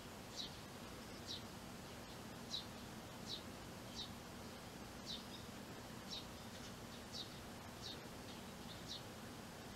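Eurasian tree sparrow chirping: short, high, faint chirps repeated about once or twice a second, over a faint steady low hum.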